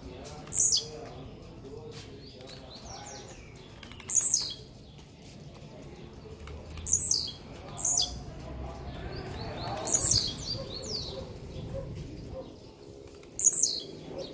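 Two caged songbirds singing against each other in a song duel, each giving short, high, quick phrases of falling notes, about six phrases in all with pauses of a second or three between them.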